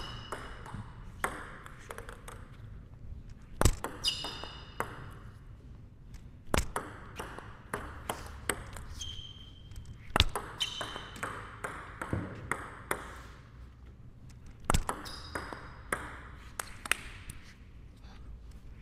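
Table tennis rally: the ball clicking off the rackets, one faced with Nittaku Genextion rubber, and bouncing on the table in a quick, uneven rhythm, with a few sharper, louder strokes standing out. Brief high squeaks come in now and then between the hits.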